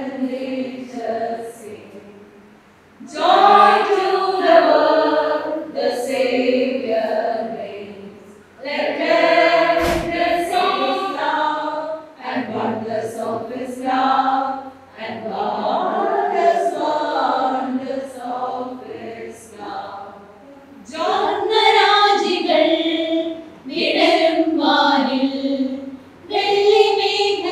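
A group of women singing a Christmas carol together into a microphone, without instruments, in phrases a few seconds long with short breaks between them.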